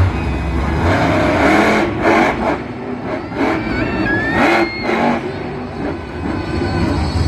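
Monster truck engine running and revving repeatedly, in several loud swells over a steady low rumble.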